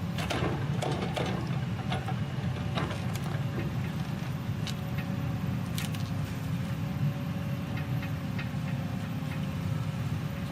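John Deere 3554 shovel logger's six-cylinder turbocharged diesel running steadily under work, with occasional short knocks and clicks from the machine.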